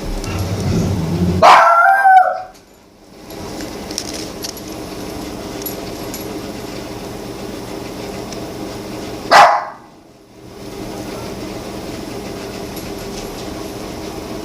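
A dog barking twice, about eight seconds apart: a longer bark about a second and a half in and a short, sharp one near the ten-second mark, over a steady low hum.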